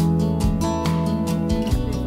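Background music led by a strummed acoustic guitar, with a steady beat.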